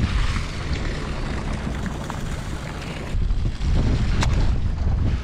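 Wind buffeting the microphone over the open sea, a steady low rumble with a hiss of water and boat noise behind it, louder from about three and a half seconds in.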